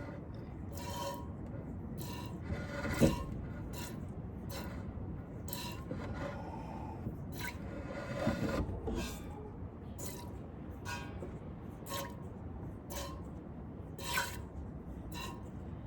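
Hand-milking a goat: short squirts of milk hitting the milk bucket, about one or two a second in an uneven rhythm, with a louder knock about three seconds in.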